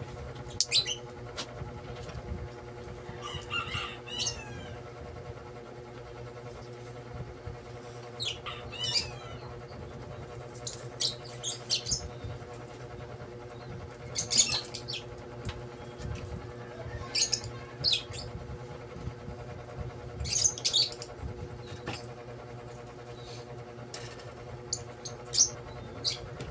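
Enamelled copper magnet wire being pulled and threaded by hand through the slots of an alternator stator: repeated short scraping hisses over a steady low hum. A couple of brief bird chirps come a few seconds in.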